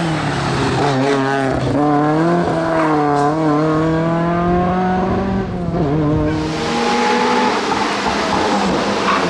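Ford Escort Mk2 historic rally car's engine revving hard through a bend, its pitch dipping and climbing again several times with the gear changes as it passes and pulls away. About six seconds in, an Alpine A110 rally car's engine takes over as it approaches at speed.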